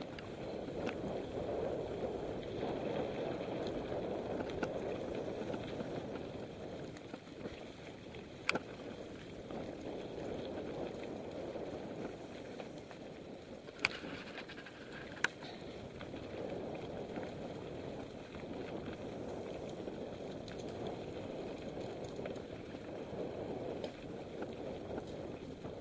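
Mountain bike riding along a dirt singletrack: a steady rush of tyre and trail noise that swells and eases, with three sharp clicks or knocks near the middle.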